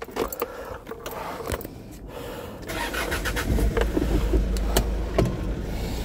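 Keys jangling and a few clicks in the driver's seat, then about two and a half seconds in a Hyundai vehicle's engine starts and settles into a steady low running.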